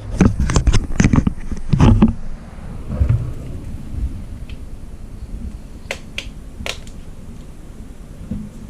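iPhone being pulled out of its case: a quick run of sharp clicks and snaps in the first two seconds, then quieter handling with a few single clicks later on.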